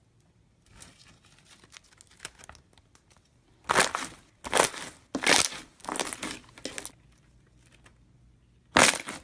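Slime being squeezed and worked, crinkling and crunching: faint crackles at first, then four loud crunchy squeezes less than a second apart, and another loud one near the end.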